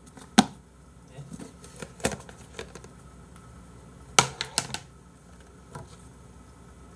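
Clear plastic snap-lock food container being opened and handled: a few sharp plastic clicks and knocks from the lid and its latches, the loudest about four seconds in.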